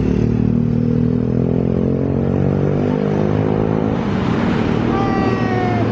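A bus's diesel engine running as it passes close by on the road. Near the end a high tone joins in and slides slightly down in pitch.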